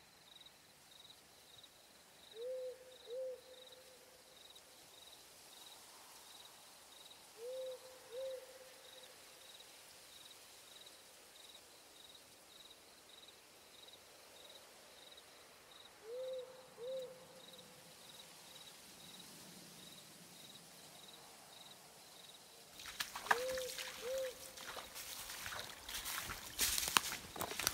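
An owl hooting in two-note pairs, four times, over a faint high chirp that repeats about twice a second. About 23 seconds in, close rustling and crackling of gear and footsteps takes over.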